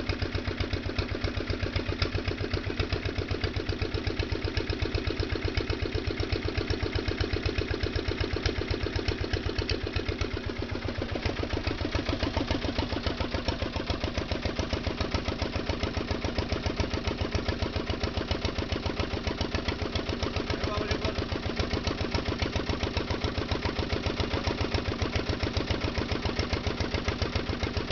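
Deutz F1L 411 single-cylinder air-cooled diesel engine running steadily on a test run, its firing beats coming in an even, rapid rhythm.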